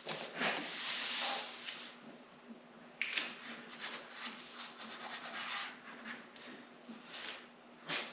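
A hand rubbing and smoothing a paper drilling template flat over a snowmobile's tunnel: dry, papery rubbing strokes, the longest near the start and shorter ones later.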